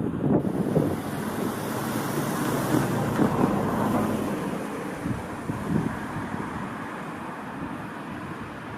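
Commuter train rumbling past slowly, its wheel and running noise fading gradually as it moves away, with wind on the microphone.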